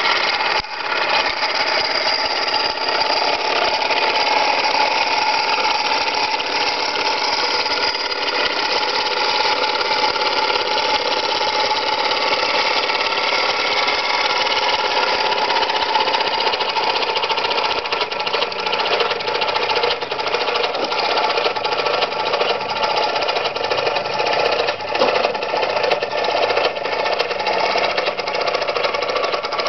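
David Auld model marine steam engine running steadily in a small wooden boat, a fast, even beat of the piston and exhaust over steam hiss.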